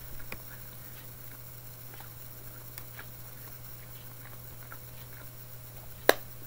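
Quiet eating sounds: scattered faint clicks and taps of cutlery picking lamb out of a microwave meal tray, and chewing, with one sharper click near the end, over a steady low hum.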